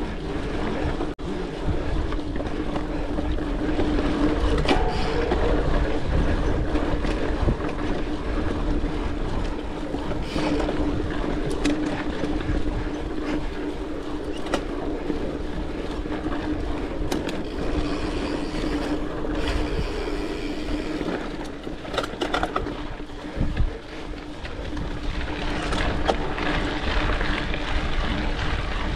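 A mountain bike riding a dirt trail: tyre rumble and wind on the microphone, with scattered knocks and rattles from bumps. A steady hum runs under it.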